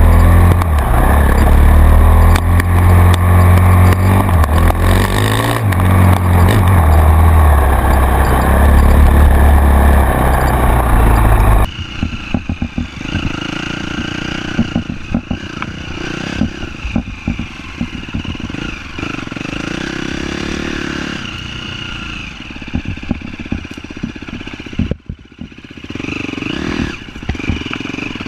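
Off-road vehicle engine running and revving while riding a rough trail, with a heavy low rumble on the microphone. About twelve seconds in the sound cuts abruptly to a quieter stretch where the engine runs under a lot of rattling and clatter.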